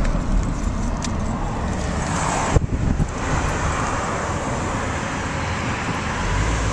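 Steady road traffic noise from cars passing on a multi-lane road, with a single short knock about two and a half seconds in.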